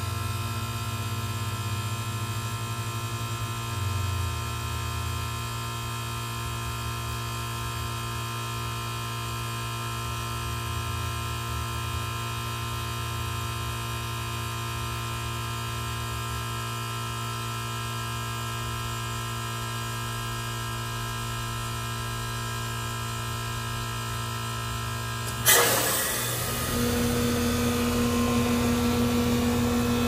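Reciprocating compressor of a Goodman GSZ13 heat pump humming steadily in defrost, its outdoor fan stopped. About 25 seconds in comes a sudden loud whoosh that dies away over about a second: the reversing valve shifting back as defrost ends. About a second later a louder, steady hum sets in, typical of the outdoor fan restarting.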